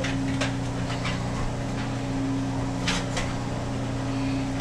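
A steady low mechanical hum at an even pitch, with a few faint clicks.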